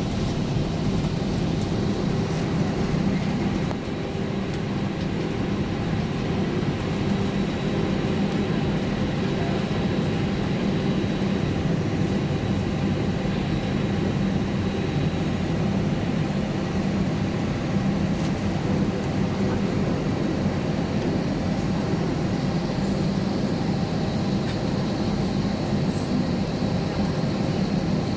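Steady cabin noise inside an Airbus A320-232 taxiing: a constant low hum from its IAE V2500 engines at low power and the cabin air system, with a faint high steady tone above it.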